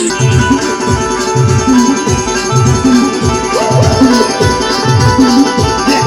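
Music with a steady, heavy bass beat and pitched instruments over it.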